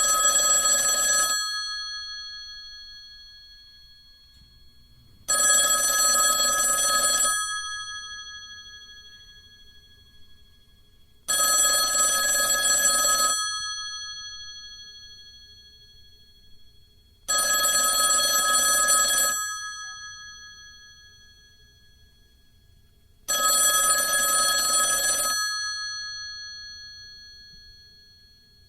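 Old telephone's bell ringing: five rings about two seconds long, one every six seconds, each leaving the bell sounding as it fades.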